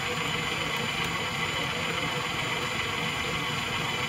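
Electric stand mixer running steadily, its beater mixing butter and egg in a metal bowl.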